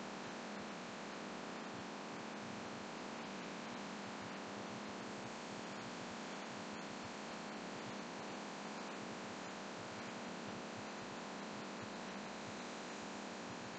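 Laminar flow hood's blower running: a steady hiss of moving air with a low hum.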